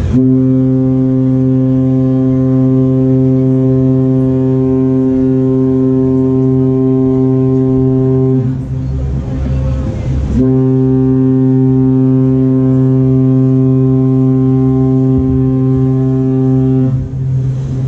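Cruise ship's deep horn sounding two long, steady blasts of about seven to eight seconds each, with a short pause between them, as the ship leaves port.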